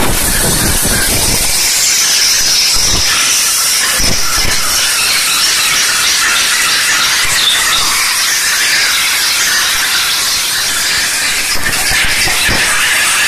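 Steam cleaner's lance jetting steam onto a metal engine cylinder head: a loud, steady, high hiss.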